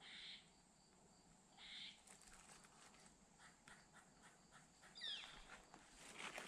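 Quiet woodland ambience: faint scattered calls and soft rustles, with a short falling call about five seconds in.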